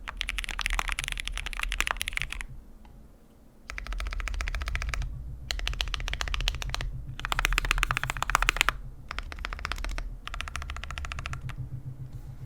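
Lubed Gateron Yellow linear switches with full milky housings typed fast on a mechanical keyboard with an aluminium plate and PBT keycaps: runs of quick keystroke clacks. There is a pause of about a second about two and a half seconds in, and shorter breaks between the later runs.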